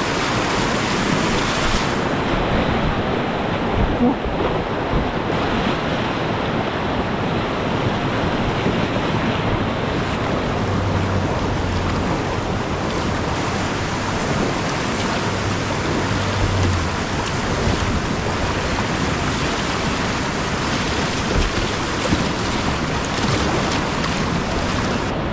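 Whitewater rapids rushing steadily around a kayak, a constant noise of fast-moving river water.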